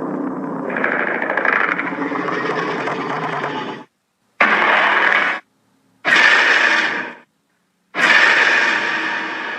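Edited Godzilla-style monster roar and growl sound effects: a long grating roar that cuts off about four seconds in, then three separate roars about a second each with silent gaps between them, the last trailing away slowly with reverberation.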